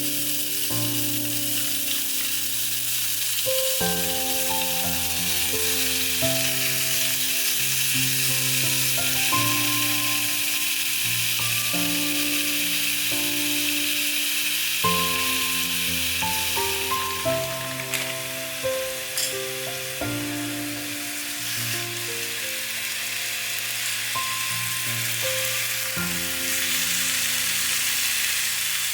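Food sizzling steadily in a hot frying pan, with a few sharp clicks from about 17 to 19 seconds in. Background music plays along with it.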